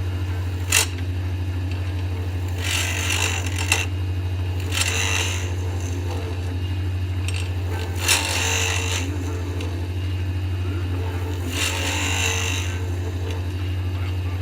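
Small lathe running with a steady low hum while a turning tool scrapes the spinning acrylic pen blank in several short, light passes. These are barely-there cuts on a blank that has chipped out, to get it running smooth again.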